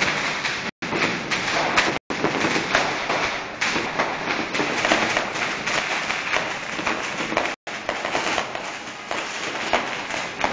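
Fireworks going off at close range: a continuous crackling hiss with many small pops and bangs running together. The sound cuts out completely for an instant three times.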